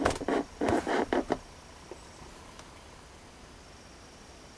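Close rustling and knocking in the first second and a half as the camera is jolted, then only faint background.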